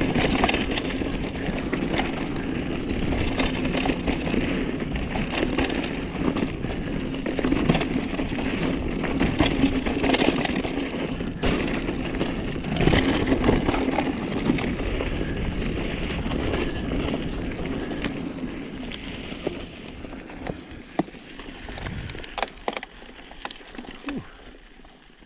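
Mountain bike riding fast down a rough dirt trail: tyres running over dirt, leaves and rock, with steady rattling and sharp knocks from the bike over bumps. Over the last several seconds it slows and quiets, leaving scattered clicks and rattles.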